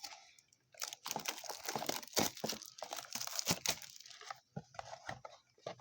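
Plastic-foil trading card pack wrappers crinkling and tearing as a blaster box of cards is unpacked: a dense run of rustles and rips that thins out near the end.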